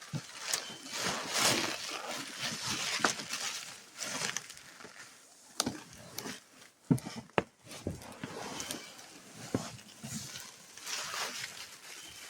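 Cardboard box and packing material rustling and scraping, with scattered sharp knocks, as a heavy-duty chainsaw carry case is handled and worked out of its shipping box.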